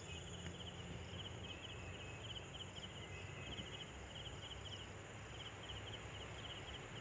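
Faint cricket chirping: short, quick trills repeating about twice a second, over a low steady hum.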